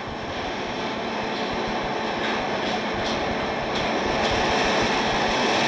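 A steady rushing noise with no clear pitch, slowly growing louder, with a few faint ticks.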